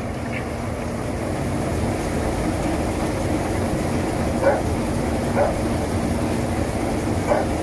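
Brush-roller onion peeling machine running, a steady hum under the rush of its water spray, with a few short knocks about four and a half, five and a half and seven seconds in.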